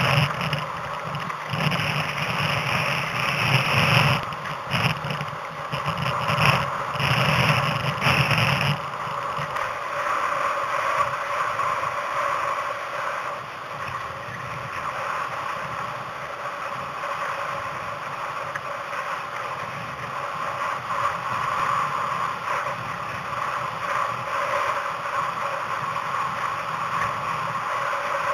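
Steady rush of wind and water during a sailing speed run, with uneven gusts battering the microphone for about the first nine seconds.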